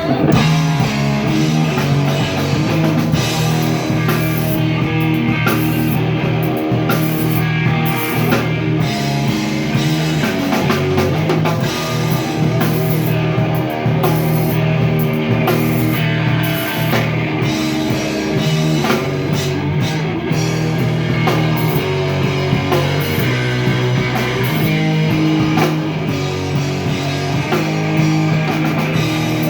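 Rock band playing live with guitars and a drum kit, loud and steady, with no singing.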